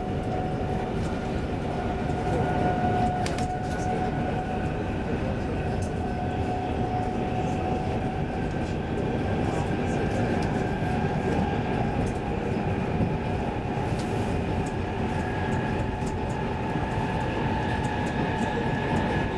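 Stockholm commuter rail X10 electric train running, heard from inside the passenger car: a steady rumble of wheels on track with a whine that rises slightly in pitch in the second half.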